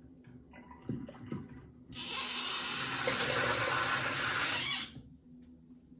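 A sink tap runs in a steady stream for about three seconds, turned on about two seconds in and shut off sharply near the five-second mark, after a few faint handling clicks.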